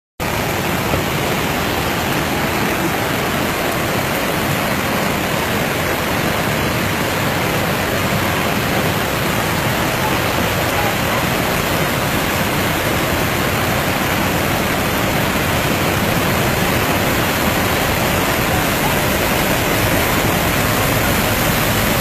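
Steady rushing noise of heavy rain and a muddy flash-flood torrent pouring down a hillside.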